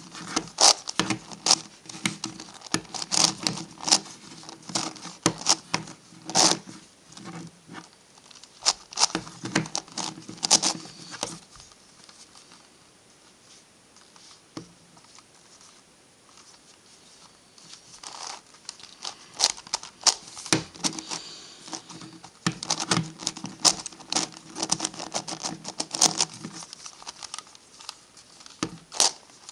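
An MF8 Gigaminx's plastic layers being turned rapidly by hand, giving dense runs of clicks and clacks. The turning stops for several seconds from about twelve seconds in, then resumes at the same pace.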